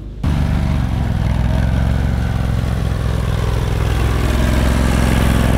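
Off-road utility vehicle's engine running close by, a steady low hum that holds an even speed.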